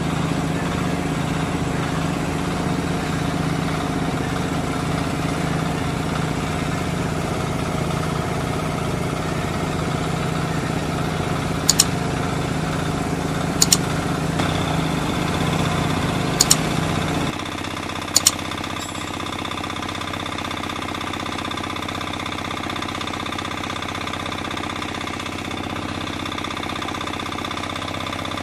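Small engine-driven water pump running steadily, feeding water to a well-drilling rig. About 17 seconds in the sound changes abruptly to a different, slightly quieter engine running, and four short sharp clicks come in the middle.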